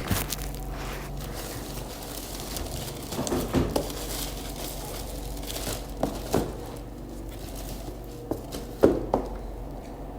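Handling noises from unboxing a tote bag: scattered rustling and crinkling of the bag and its packaging, with a few soft knocks, the loudest near the end.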